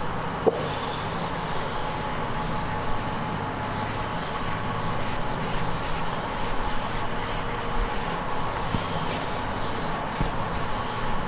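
Blackboard duster rubbing across a chalkboard in quick back-and-forth strokes, wiping off chalk.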